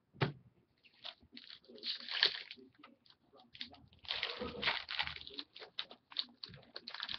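Wrapper of a hockey trading-card pack crinkling and tearing as it is opened by hand, in two longer bouts of crackling rustle, with a single sharp knock just at the start.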